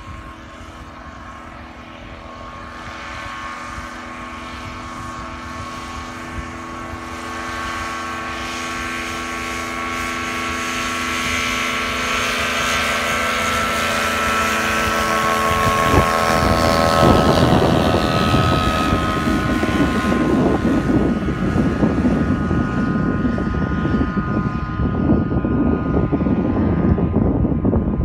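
Engine and propeller of a small single-engine ski plane running across snow: a steady hum of engine tones that grows louder as the plane comes closer, then, about halfway through, turns into a louder, rougher rushing noise as it passes and heads away.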